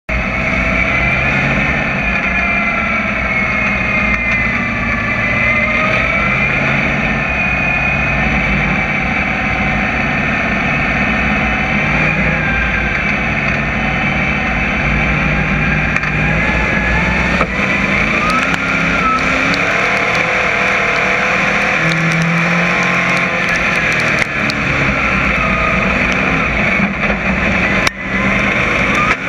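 Dirt crate modified race car's crate V8 engine running, heard from inside the cockpit, its pitch rising and falling as the driver works the throttle, with other race cars' engines around it. A few sharp clicks late on, as dirt is thrown against the car.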